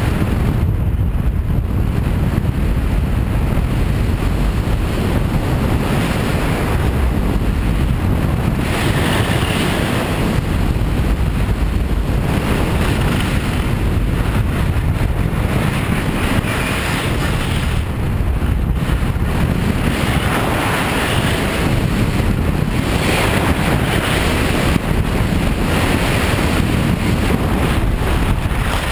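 Wind buffeting the microphone of an action camera held out on a pole during a fast ski descent, with the hiss of skis carving on packed snow swelling every two to three seconds as the skier turns.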